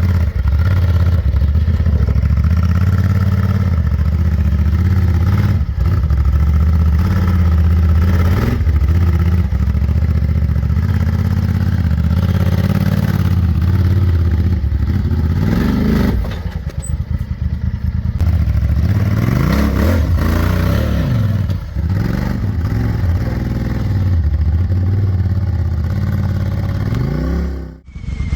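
Honda Talon 1000X-4's parallel-twin engine running under load as the side-by-side crawls up over rock, the revs rising and falling repeatedly in the second half. The sound drops out for a moment just before the end.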